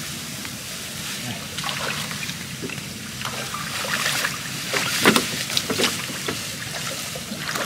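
Water splashing and dripping around a small boat as a fishing trotline is handled over the side, with short irregular splashes that grow busier a few seconds in. A steady low hum runs underneath.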